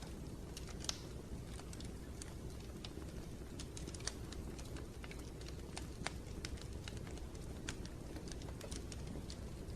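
Wood fire burning in a fireplace: irregular crackles and sharp snaps over a steady low rumble of the flames, with a few louder pops.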